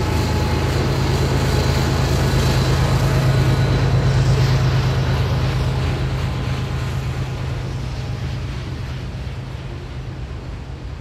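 Two Union Pacific GE ES44AC (GEVO) diesel locomotives, working as mid-train helpers at full throttle, pass with a deep steady engine drone that is loudest about four seconds in and then fades, leaving the rumble of freight cars rolling over the bridge.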